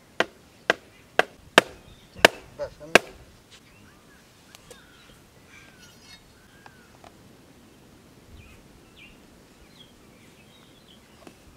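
A hand tool striking hard about seven times in a steady chopping rhythm, roughly two blows a second, while an earth stove is being dug and built. The blows stop after about three seconds, leaving birds chirping now and then.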